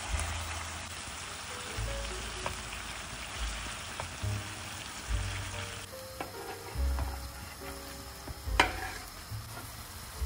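Cherry tomatoes and garlic sizzling in hot olive oil in a frying pan, stirred with a wooden spatula, over background music with a bass line. The sizzle drops off about six seconds in, and there is a short loud burst about eight and a half seconds in as diced monkfish is slid off a wooden board into the pan.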